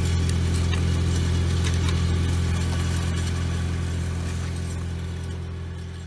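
Lincoln engine-driven welding generator running steadily, a low engine hum that gradually fades near the end.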